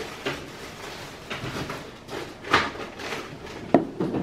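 Cavalier King Charles Spaniel puppy tussling with a big plush toy against a cardboard box: irregular scuffs and knocks, the two sharpest a little past halfway and near the end.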